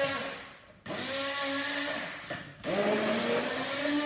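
Electric immersion hand blender running in a tall beaker of cream and strawberries, in three bursts with short stops between. At each start the motor whine rises as it spins up, then holds steady.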